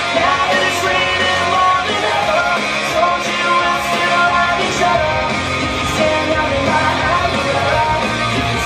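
Rock music with guitar and a singing voice, loud and unbroken.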